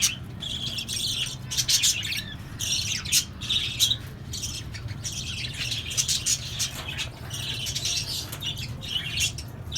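Mixed flock of Fischer's lovebirds, cockatiels and budgerigars chattering and calling without pause, with many short sharp calls standing out from the high chatter.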